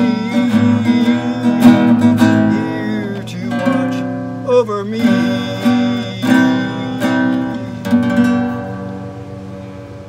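Nylon-string classical guitar strummed and picked as song accompaniment, with a man's voice briefly holding a wavering note about four and a half seconds in. The playing dies away near the end, closing the song.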